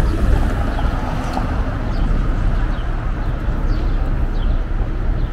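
Downtown street ambience: a steady rumble of city traffic, with a few short high chirps scattered through it.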